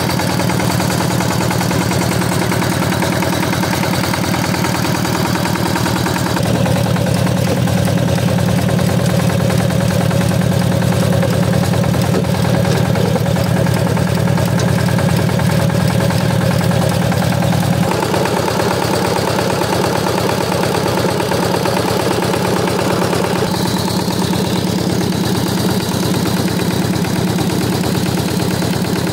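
Two-wheel power tiller's engine running steadily with a rapid, even beat while its rotary tines churn wet soil. The engine note changes twice, about six and eighteen seconds in.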